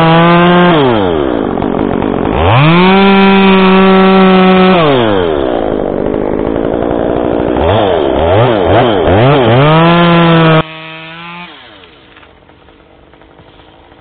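Two-stroke gas chainsaw, close to the microphone, revved to full throttle in long bursts and falling back toward idle between them, with a run of quick throttle blips around eight seconds. Near eleven seconds the loud saw cuts off suddenly, leaving a much fainter sound.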